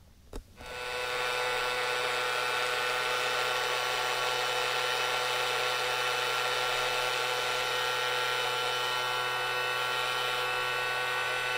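Toy cordless stick vacuum's small battery-powered motor and fan switched on, running with a steady whine that starts about a second in.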